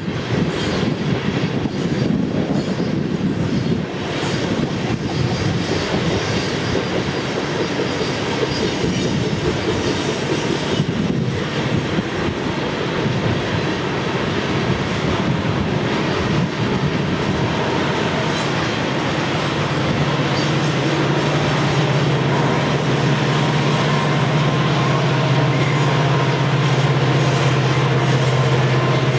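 Loaded coal hopper cars of a freight train rolling past: steady steel wheel-on-rail rumble with irregular clicking over rail joints and light wheel squeal. A steady low hum joins about two-thirds of the way in.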